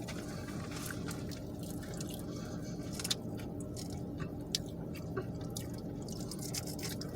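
A person eating: soft, wet chewing and squishing sounds with scattered small clicks, over a steady low hum.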